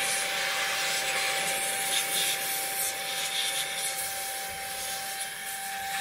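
Brigii M1 handheld vacuum running in air-blower mode, blowing dust out of a desktop computer case. Its motor holds one steady whine over a hiss of rushing air.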